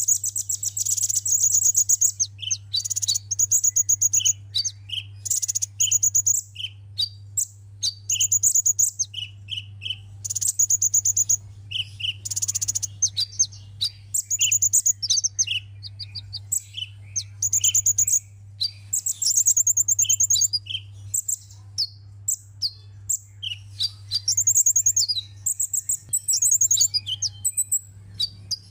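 Small bird of the sunbird family singing: rapid high chirps and fast buzzy trills, repeated in short phrases, over a steady low hum.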